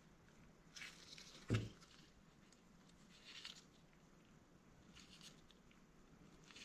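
Faint handling sounds of gloved hands working a rebuilt turbocharger's shaft by hand to check it for play and grinding: light rustles, with one soft knock about a second and a half in.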